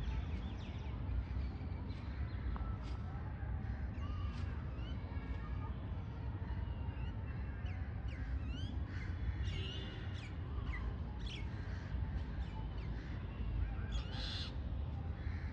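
Several birds calling and chirping throughout, with many short rising and falling notes and a few harsher calls, over a steady low rumble.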